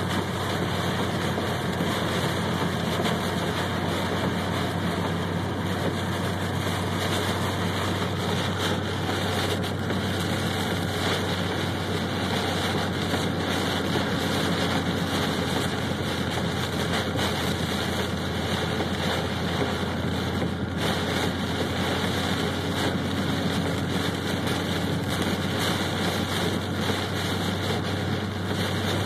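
Torrential rain pounding on a car's roof and windshield, with steady tyre spray and a low engine drone heard inside the cabin; a continuous heavy wash of noise that does not let up.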